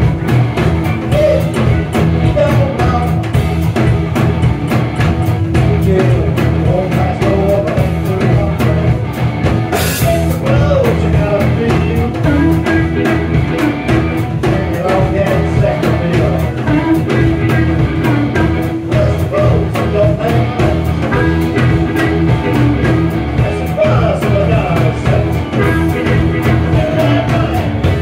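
A rock band playing live and loud: drum kit and amplified electric guitars playing a rock and roll number, with a singing voice in the mix.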